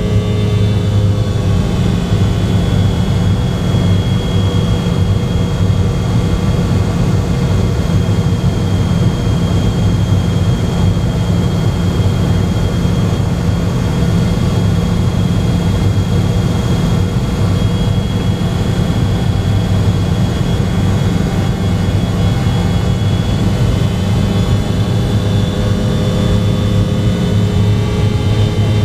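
Steady drone of a McDonnell Douglas MD-88's rear-mounted Pratt & Whitney JT8D turbofan engines heard from inside the rear cabin: a deep hum with a faint high whine over it, unchanging throughout.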